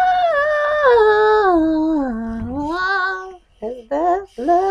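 A person's voice singing a slow, wordless tune in long sliding notes. It breaks off about three and a half seconds in, gives a few short notes, then starts another phrase near the end.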